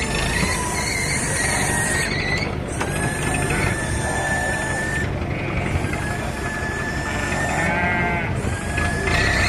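Several sheep bleating repeatedly with wavering calls, over a steady low background din.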